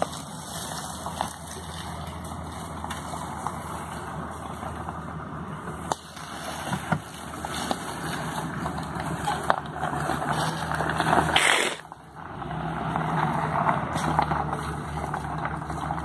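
Jeep Grand Cherokee ZJ engine running at low speed as it drives down a dirt bank onto gravel, with tyre noise and small clicks over dirt and stones. A brief loud rush of noise comes about three-quarters of the way through.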